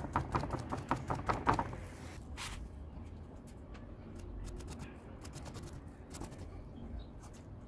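Rapid light tapping as a paint-loaded dabbing tool is pressed again and again onto the poster board to texture foliage. A short hiss comes about two seconds in, followed by a few scattered soft taps.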